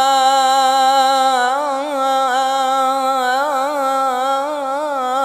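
A man singing a sholawat, holding one long melismatic vowel: the note is held steady for about a second and a half, then wavers in quick ornamental turns. The voice is alone, with no accompaniment.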